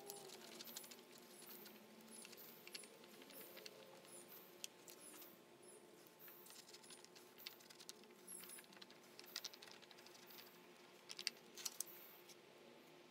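Faint clicks and light taps of a paintbrush dabbing and stirring in a plastic tray of black paint, with a few louder clicks near the end. Quick, high, thin chirps repeat throughout.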